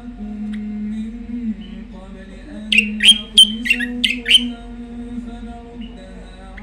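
Caged songbird giving a quick burst of about six sharp, downward-slurred chirps a little under three seconds in, over a steady chanted recitation or music in the background.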